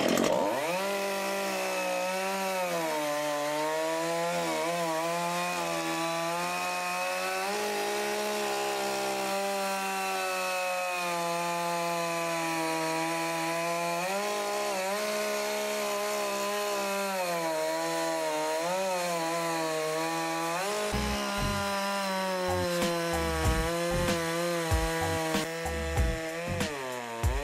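Makita two-stroke petrol chainsaw running at high revs, cutting wood: the engine note sags each time the chain bites and picks up again as the load eases. Low thumps join in over the last few seconds.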